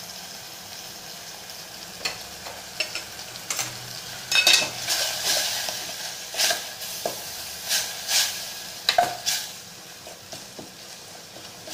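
A steel spoon stirs chopped fenugreek leaves in a stainless steel pot, scraping and clinking against the pot in a series of strokes that are busiest in the middle. Under it runs a steady sizzle of the greens frying in a little oil.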